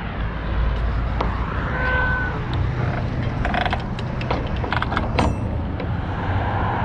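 Diesel truck engine idling as a steady low rumble, with a brief squeak about two seconds in and a cluster of metallic clicks and rattles between about three and five seconds.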